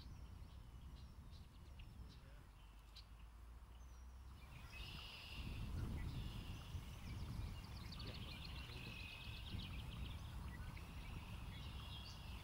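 Small songbirds chirping, with a fast trill in the second half, over a low rumble that swells in the middle.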